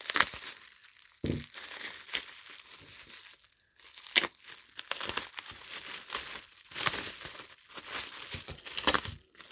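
Packaging crinkling and rustling in irregular bursts as miniature kit parts are handled and unpacked.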